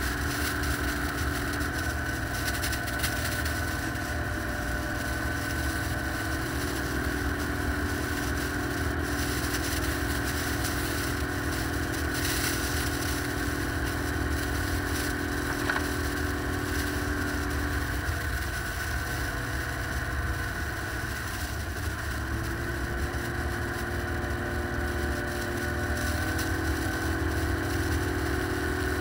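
Small off-road vehicle engine running steadily while driving through snow, over a constant rush of wind and snow noise. The engine pitch steps up about a quarter of the way in, eases off around two-thirds through, then climbs back near the end.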